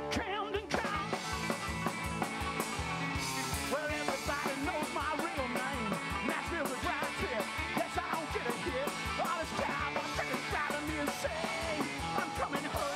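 A live rock and roll band playing: electric guitar lead with many bent, wavering notes over a steady drum beat, upright bass and rhythm guitar.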